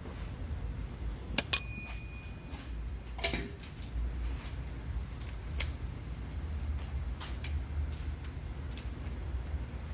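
Hand tools on metal while the front hub's 14 mm mounting bolts are worked loose: a sharp metallic clink that rings briefly about a second and a half in, a duller knock about three seconds in, then scattered light clicks.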